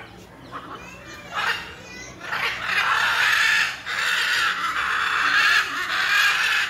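Macaw screeching: harsh, loud calls, a short one at first and then three long ones in a row from about two seconds in, each a second or more.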